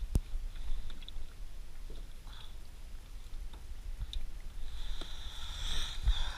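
Small clicks and handling noises of hands connecting wire pins to a charger inside a plastic box: a sharp click just after the start, scattered light ticks, then a rougher rustling stretch near the end as the box is moved, over a steady low rumble.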